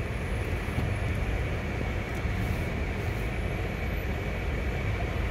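Car in motion heard from inside the cabin with a side window down: a steady low rumble of engine and tyres.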